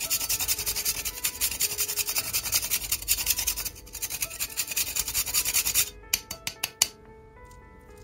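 Whole nutmeg being grated on a fine rasp grater in quick back-and-forth strokes, a dry rasping scrape. The grating stops about six seconds in, followed by a few short sharp taps.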